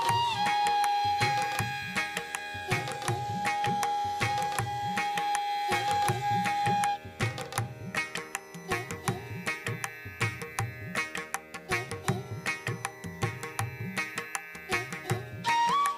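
Background Indian instrumental music: a drum pattern under one long held melody note. The held note drops out about seven seconds in, and the drums carry on alone.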